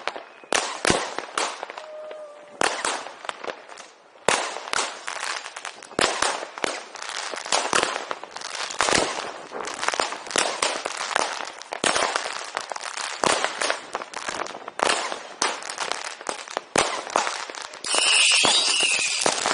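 New Year's Eve fireworks: a dense, irregular run of firecracker bangs and crackles. From about eighteen seconds in it turns into a thick continuous crackle with short whistles.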